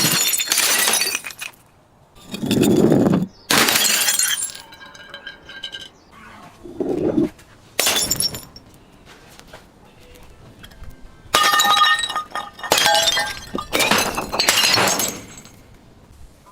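Glass breaking again and again in a run of sudden shattering crashes, some with a dull low thud under them. Between crashes there is a faint tinkle of ringing shards, and the last few crashes come close together near the end.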